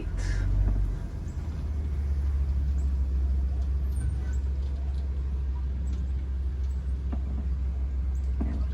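Safari truck's engine running steadily with a deep, even rumble as it drives along, heard from on board the open-sided vehicle.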